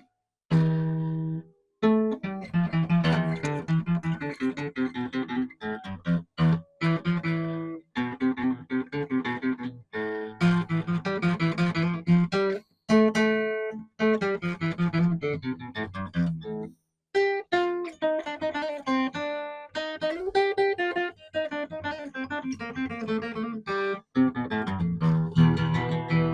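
An old Soviet-era acoustic guitar being played: picked chords and runs with short breaks. It is out of tune, which the player puts down to a wrong scale length.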